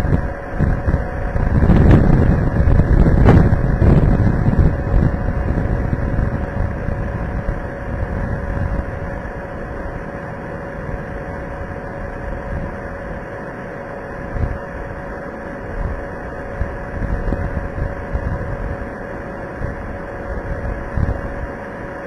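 Storm wind from a small tornado buffeting a security camera's microphone as a heavy low rumble. The rumble is strongest a second or two in, then eases to a gusty rush with occasional swells. A faint steady hum sits underneath.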